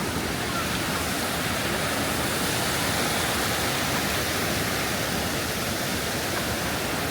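Waterfall on the Krka river, its falling water making a steady, even rush.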